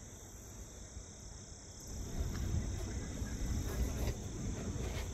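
Insects droning steadily in a high pitch. About two seconds in, a low rumble grows beneath it.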